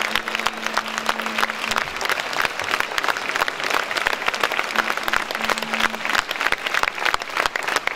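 A large crowd applauding, many hands clapping steadily together. A faint low steady tone sounds briefly beneath it, once at the start and again about five seconds in.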